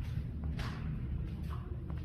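Oak and pine wood fire burning in a brazier: a steady low rumble of flame, with a sharp crackle about half a second in and smaller pops near the end.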